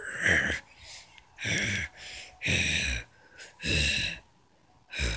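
A person making about five short, breathy vocal sounds, each about half a second long and roughly a second apart, with no words.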